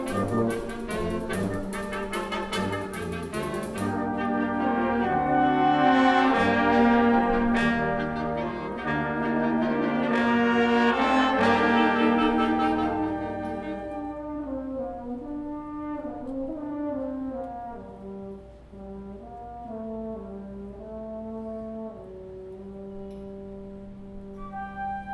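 Concert wind band playing: a percussive passage gives way about four seconds in to loud sustained brass chords. These fade out around the middle, leaving softer held notes, and a higher line enters near the end.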